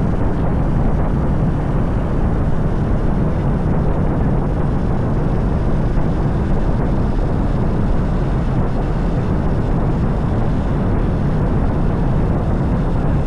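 Steady rush of wind buffeting an action camera's microphone during a road bike ride, with no pauses or separate events.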